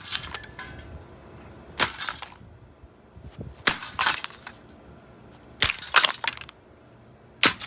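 An old six-blade ceiling fan being smashed apart: a series of hard impacts with cracking and breaking, several coming in quick pairs.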